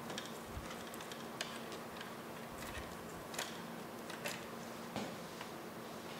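Irregular light clicks and taps, about half a dozen, from hands moving liquid-cooling radiator hoses and cables inside a computer case, over a faint steady hum.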